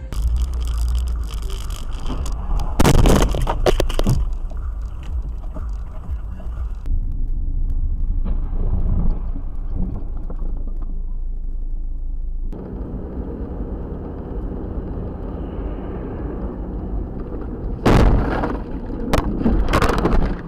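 Several dashcam recordings in a row: steady car engine and road noise heard inside the cabin, broken by loud crash impacts about three seconds in and again near the end.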